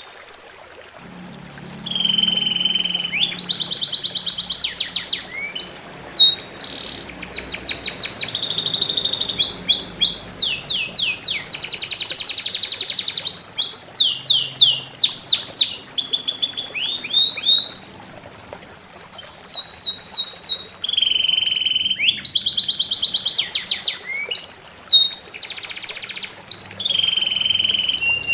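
A songbird singing loudly in varied phrases of rapid trills, sweeping whistles and repeated notes, with short pauses between bursts.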